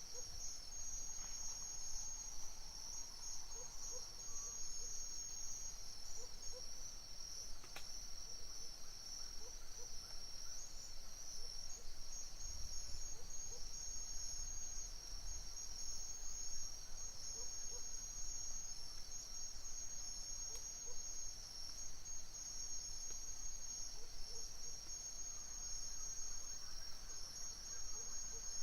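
A night chorus of crickets chirping: a steady, high-pitched, unbroken trill.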